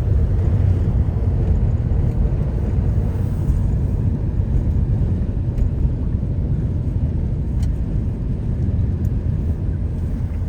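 Steady low rumble of road and engine noise heard inside a moving car's cabin at highway speed.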